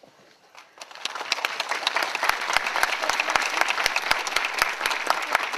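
Crowd applauding: the clapping starts about a second in, builds quickly and then holds steady and dense.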